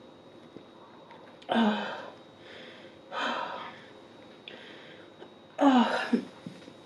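A woman coughing into a tissue held to her mouth: three separate coughs about a second and a half apart, the last one doubled. A coughing fit from eating too fast.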